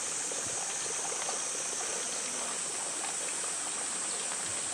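Steady high-pitched hiss of a summer cicada chorus, even throughout.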